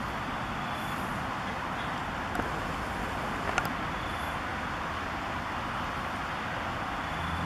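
Steady road traffic noise, a continuous wash of passing cars. A brief sharp click about three and a half seconds in, with a fainter one a second earlier.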